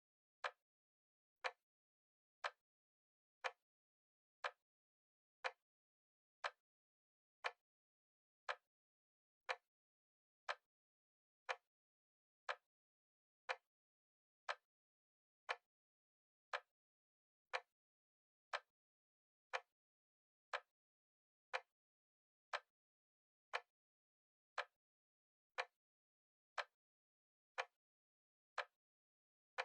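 A timer ticking steadily once a second like a clock's second hand, each tick short and sharp with silence between.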